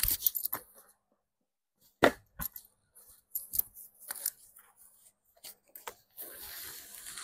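HJC F70 full-face motorcycle helmet being put on and adjusted by hand: a quick cluster of clicks and rattles at the chin strap, then scattered knocks and scrapes, and a steady rubbing hiss near the end as hands press the shell and padding.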